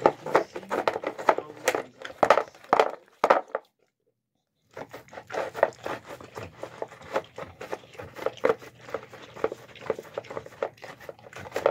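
Dog eating chicken noodles from a plastic bowl: close, wet chewing and smacking with quick irregular mouth clicks. The sound cuts out completely for about a second, roughly three and a half seconds in.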